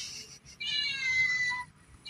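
Toy cat's electronic meow: one high-pitched, slightly falling meow lasting about a second.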